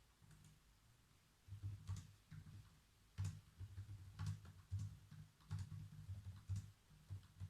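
Typing on a computer keyboard: irregular key clicks with soft low thuds under them, several a second, starting about a second and a half in after a brief quiet.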